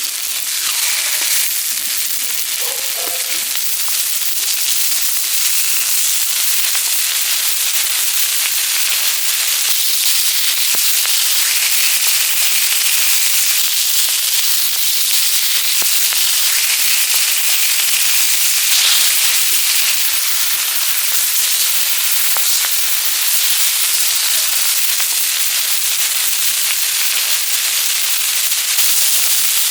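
Pork belly frying on a hot griddle over a wood stove: a steady loud sizzle with constant small pops and spits of fat.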